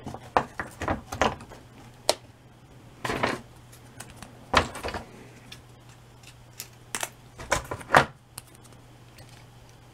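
Scattered light clicks, taps and short scrapes of hands handling a corrugated-cardboard roof model on a foam core, the loudest knocks about three, four and a half, seven and eight seconds in, over a steady low hum.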